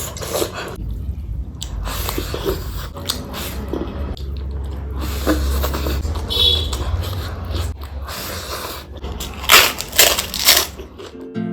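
Close-miked eating sounds: chewing and crunching with irregular sharp bites over a low rumble.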